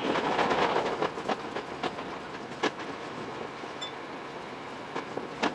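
Tokyo Metro 10000 series train running along the track: a steady rumble and hiss with a scatter of sharp clicks from the wheels over rail joints. It is louder for the first second or so.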